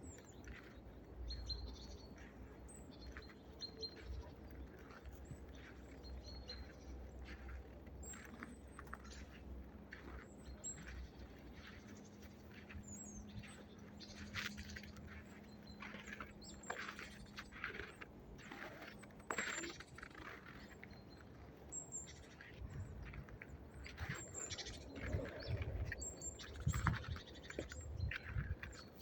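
Small wintering songbirds chirping and calling in short, high, repeated notes, with scattered light taps and clicks among them. A low, steady hum joins in for a few seconds in the middle.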